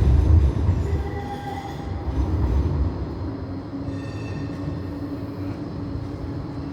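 Flexity tram running on street-track rails: a loud low rumble that eases after about three seconds. Short high wheel squeals come about a second in and again about four seconds in, and a steady low hum sets in for the rest.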